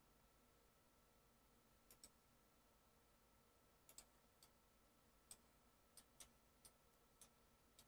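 Near silence with faint computer mouse and keyboard clicks, about ten scattered through it, some in quick pairs, over a faint steady electrical hum.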